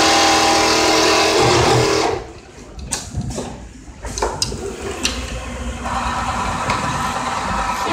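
Automatic template sewing machine running at speed, then stopping abruptly about two seconds in, followed by a few sharp clacks and the machine's hum picking up again around six seconds in: the short pause between sewing cycles while the template is changed over.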